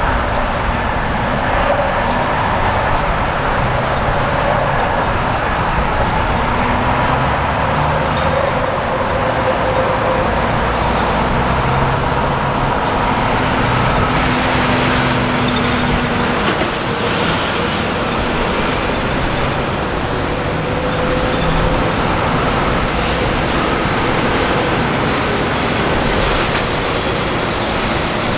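Semi-truck diesel engines and steady traffic noise as tractor-trailers and cars drive past, with engine tones coming and going as each truck passes.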